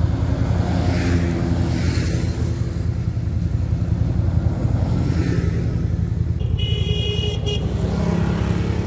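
A side-by-side engine idling steadily close by while several side-by-sides and an ATV drive past on gravel one after another. One of them gives a short horn toot about seven seconds in, and the last one revs up as it passes close.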